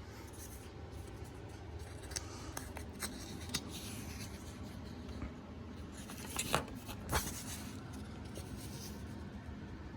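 Paper rustling and soft crinkles as a printed instruction manual is handled and its pages turned, with scattered short rustles and two louder ones a little past halfway.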